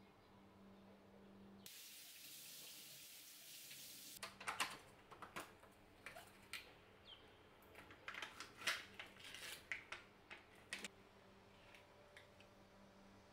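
A couple of seconds of steady hissing, then a run of crinkles and clicks as a plastic cream cheese tub is opened: its clear lid pulled off and the seal peeled back.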